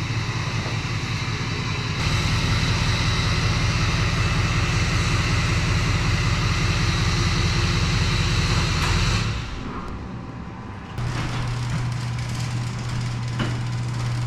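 Pickup truck running with steady engine rumble and road hiss, as heard while driving. About nine seconds in the noise drops away, and a quieter steady low hum carries on to the end.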